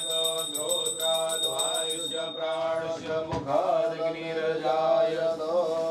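Sanskrit mantra chanted in a drawn-out, sing-song voice. Over roughly the first two and a half seconds a small bell rings rapidly and steadily, then stops.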